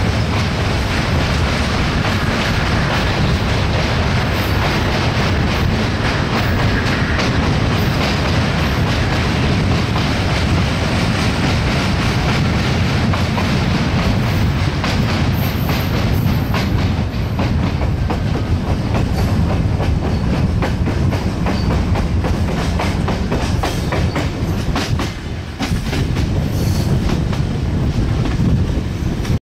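Passenger train running at speed, heard from beside the coaches: a steady rumble of wheels on rail with repeated clacks over the rail joints, crossing a steel truss bridge and then running onto plain track.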